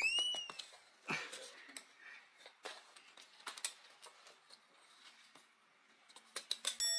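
A quick rising whistle-like sound effect at the start. After it come scattered light clicks and scrapes from a Chihuahua's claws and paws on a wooden floor as she reaches under low furniture for a toy, with a quick run of clicks near the end.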